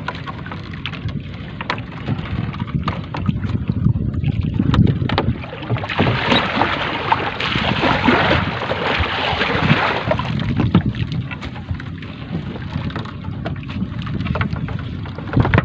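A wet 3-ply shrimp net hauled by hand over the side of a wooden boat: scraping of net and rope on the gunwale with small knocks, over a low rumble of wind on the microphone. A louder rushing, splashing noise rises from about six to ten seconds in.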